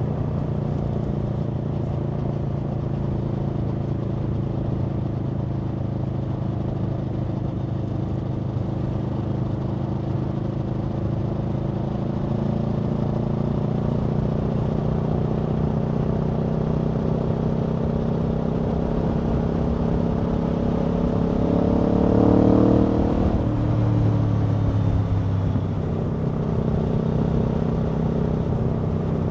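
Aprilia Tuono V4 motorcycle's V4 engine under way, holding a steady note, then climbing gradually in pitch and loudness as the bike accelerates. It peaks about three-quarters through, falls away quickly, and settles to a lower steady note.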